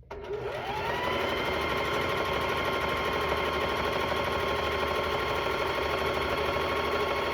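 Electric sewing machine stitching a long seam. The motor speeds up over the first second, runs steadily at speed, then slows to a stop near the end.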